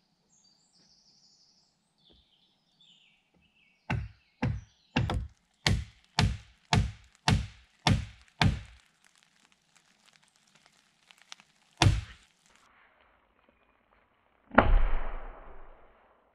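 Wooden peg being driven into a log wall with blows from an axe. A run of nine sharp wooden knocks, a little under two a second, is followed by a single knock a few seconds later and then a heavier blow with a longer rough tail near the end. Birds chirp faintly at the start.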